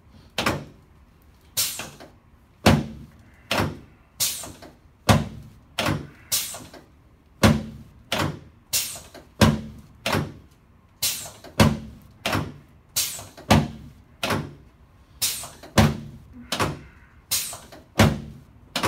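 Chiropractic drop table's section dropping under repeated thrusts: sharp clacks, about one and a half a second, evenly paced throughout.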